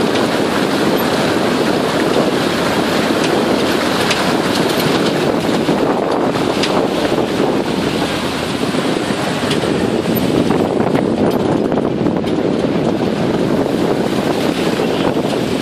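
Open swamp buggy's engine running steadily while the vehicle moves, with wind buffeting the microphone in a continuous rush.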